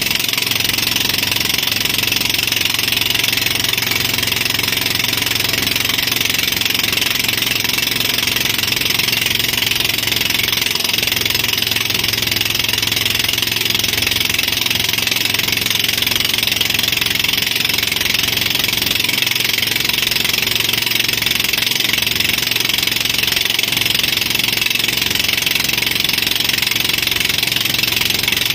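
Tow boat's engine running steadily at speed, with a steady hiss over it.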